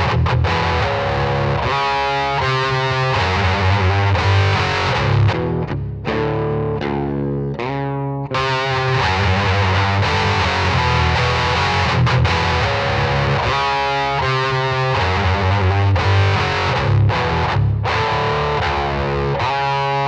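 Electric guitar played through the Wrathprayer one-knob distortion pedal, with its HM-2-style tone stack, in heavily distorted metal riffing. About six seconds in a chord is left to ring out and fade, and the riff starts again about two seconds later.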